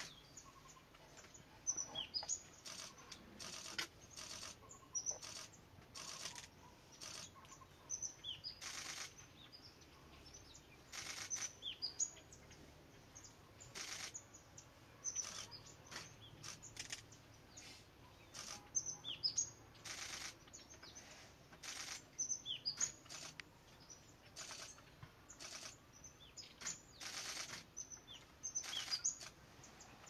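Brown-fronted woodpecker pecking and chiselling at tree bark in irregular short bursts of rapid taps, with brief high bird chirps in between.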